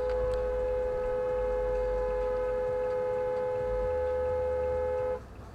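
Car horn held down in one long steady blast for about five seconds, then cut off sharply.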